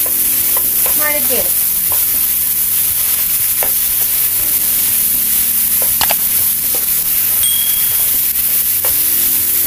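Diced ripe banana pieces frying in ghee in a non-stick pan over a high flame, sizzling steadily while a wooden spatula stirs and scrapes them, with a few sharp knocks of the spatula against the pan.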